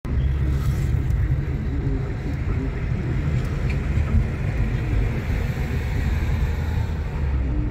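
Steady low rumble of engine and tyre noise inside the cabin of a car driving along a road.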